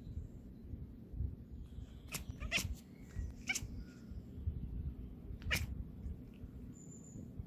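Scottish Fold kitten chattering at birds: four short, high chirps, the first two close together. This is the excited prey-call cats make at birds they cannot reach.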